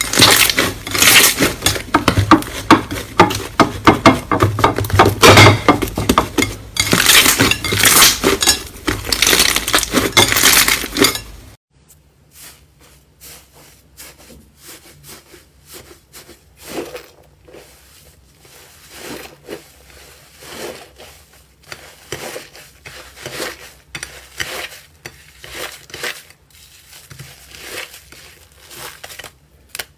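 Slime being squeezed and pressed by hand, giving dense, loud crackling clicks. After about eleven seconds it cuts suddenly to a much quieter passage of sparser pops and clicks.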